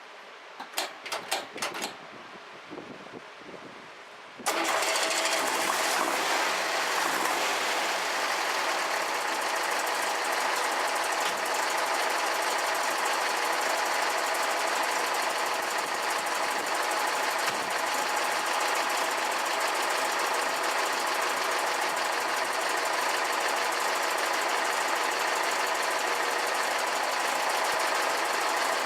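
A few sharp clicks, then about four and a half seconds in an air-cooled VW flat-four engine comes in abruptly, running steadily at idle with a busy mechanical clatter.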